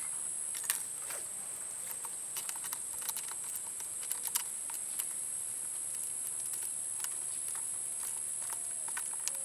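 Steady high-pitched insect drone, with scattered light clicks and taps from handling the Rossi Matched Pair's metal parts while its barrel is swapped from .22 LR to .410.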